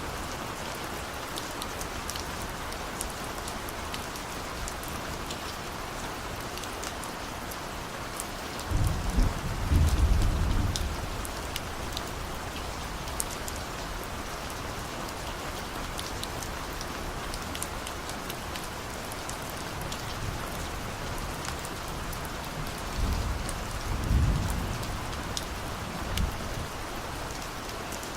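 Steady rain with drops ticking, and distant thunder rumbling low twice: once about nine seconds in, lasting a couple of seconds, and again near the end.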